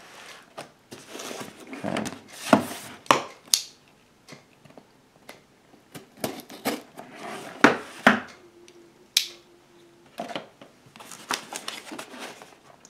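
A cardboard radio box being handled and turned over on a desk: scattered sharp knocks and taps with soft scraping and rustling of cardboard.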